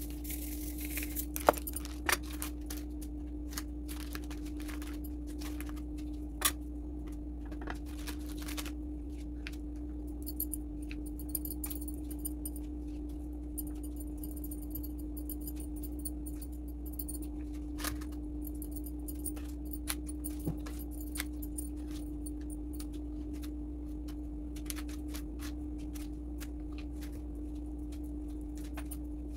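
Scattered light clinks and clicks of metal bangles and a spatula as frosting is spread over a cake, with a steady low hum beneath.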